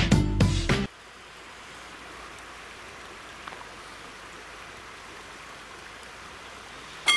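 Guitar music cuts off about a second in. A steady faint hiss of background ambience follows. Right at the end, a level-crossing warning bell starts ringing.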